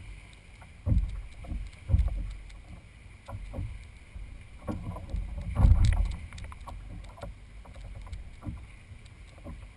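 Fishing kayak on moving water: water slapping the hull and irregular low thumps and knocks, the strongest about a second in, at two seconds and near six seconds.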